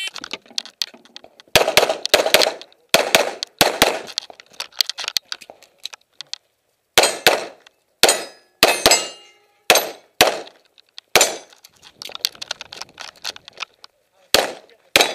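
Start beep of a shot timer, then strings of rapid pistol shots from a CZ SP01 Shadow, each shot followed by the metallic ring of a hit steel target. There is a gap in the shooting of about two seconds near the middle.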